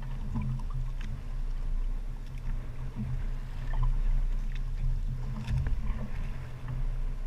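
Engine of a Balinese outrigger fishing boat running steadily, a low hum, with water rushing along the hull.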